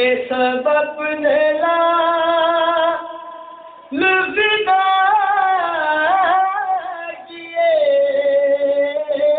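A man's voice reciting Urdu devotional verse to Husain in a sung, melodic style into a microphone: three long phrases of held, ornamented notes, with a short break about three seconds in and another about two seconds before the end.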